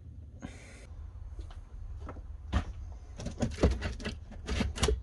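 Hands handling and fitting steering rack parts: a short rustle about half a second in, then a quick run of light clicks and knocks from about halfway through, over a low steady hum.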